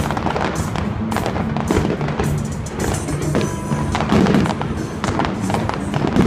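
Fireworks going off in a rapid string of bangs and crackles, with music playing underneath.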